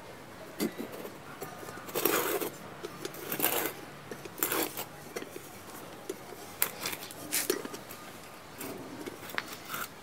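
Moka pot being twisted and pressed on its base packed with soil and gravel, making gritty metal-on-grit scraping in several short bursts, with a few sharp clicks later on. The gravel inside is scouring rust off the water chamber.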